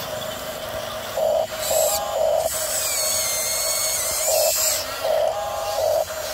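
Electric drive motors and gearboxes of a Huina radio-controlled toy bulldozer whining as it crawls over gravel, in repeated bursts, the whine gliding up and down in pitch as it is driven.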